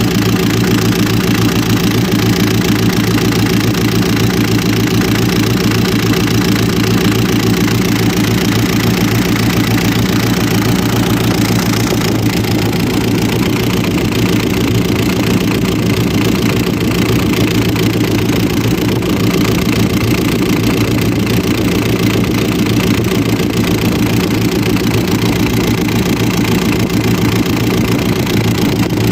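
Hino truck diesel engine idling steadily.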